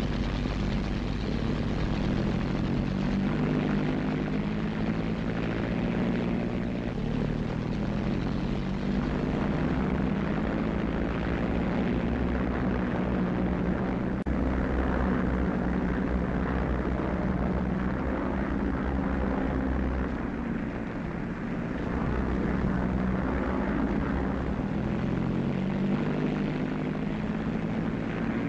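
Vickers Wellington bombers' twin Bristol Pegasus radial engines droning steadily, their pitch wavering slightly.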